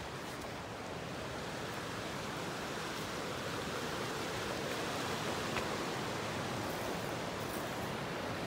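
Steady rush of flowing creek water over rocks, slowly getting a little louder over the first few seconds.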